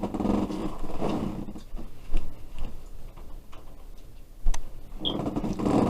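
Close-up eating noises, crackly chewing of barbecue chicken bites, with two sharp knocks about two and four and a half seconds in.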